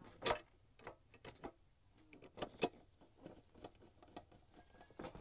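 Scattered light clicks and knocks of an electric hot-water pot's parts being handled and fitted back together during reassembly. Sharper clicks come about a quarter-second in and again about two and a half seconds in.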